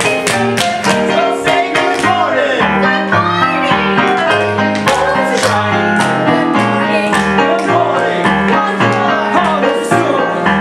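Music with piano and a steady bass line, with a singing voice over it from about two seconds in.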